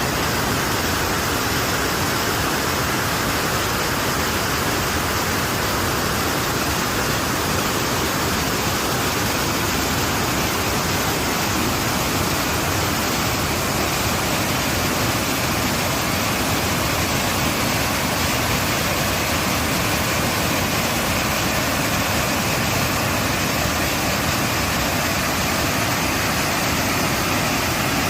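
Water pouring over a dam, a steady rushing noise that does not change.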